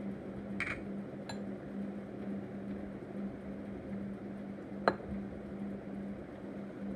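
Spoon and bowl clinking as baking soda is added: a short scrape, a light clink, then one sharp clink about five seconds in, over a steady low hum.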